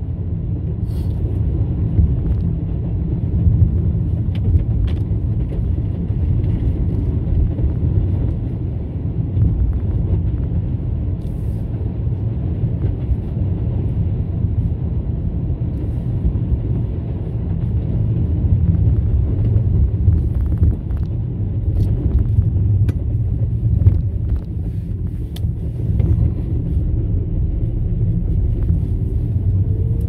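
Steady low rumble of a car driving, heard inside the cabin: tyre and engine noise on the road, with a few faint ticks scattered through it.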